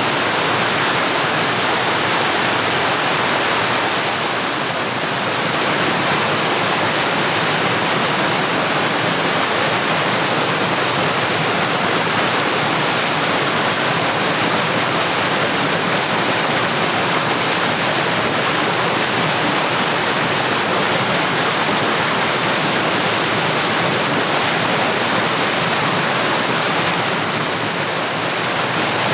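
Steady, loud rushing of running water, with no pitch or rhythm; the level dips slightly twice, around four seconds in and near the end.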